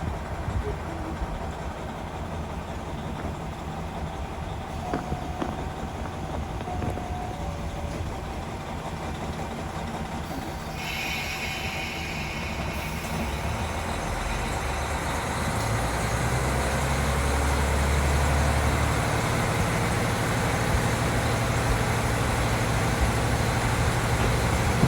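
KiHa 40 diesel railcar heard from inside while running along the line: steady wheel and rail rumble under the diesel engine. It grows louder in the second half, where a low steady engine hum comes in.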